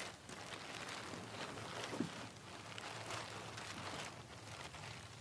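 Faint scuffing and rustling of someone moving and working on a roof deck, with one sharper knock about two seconds in.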